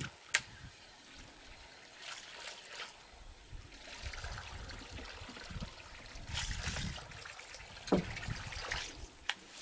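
Topwater lure splashing and gurgling in spells across the water surface as it is retrieved, with a sharp click just after the start and a couple of short pops near the end.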